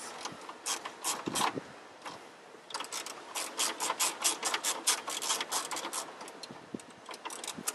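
Hand ratchet with a 7 mm socket clicking as it turns out the screws holding the factory radio. A few clicks come about a second in, then a quick, steady run of clicks from about three seconds in until near the end.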